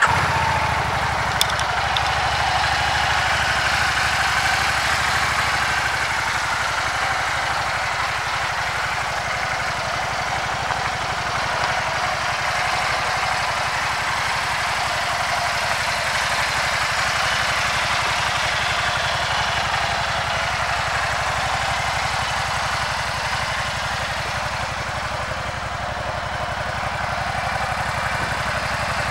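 2012 Can-Am Spyder RTS SE5's Rotax 998 V-twin idling steadily, just after being started.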